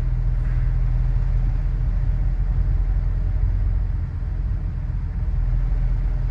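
Steady low rumble of a moving road vehicle, with its engine's drone holding an even pitch.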